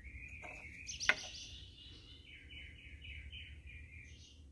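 A songbird singing faintly: a trill, then a quick run of repeated notes. There is a single light click about a second in.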